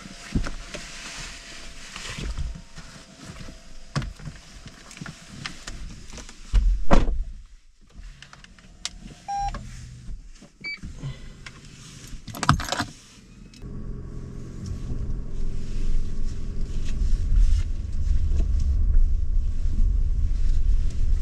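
Handling noises inside a car cabin: rustling and clicks, two loud sudden knocks about seven and twelve seconds in, and a couple of short beeps. From about two-thirds of the way in, the car's engine runs with a steady low rumble that grows louder as the car drives off.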